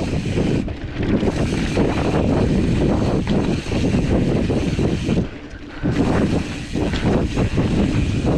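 Mountain bike rolling fast down a dirt trail: wind buffeting the camera microphone, with the tyres on dirt and the bike rattling over bumps as a steady stream of knocks and clicks. The noise drops out for about half a second a little past five seconds in.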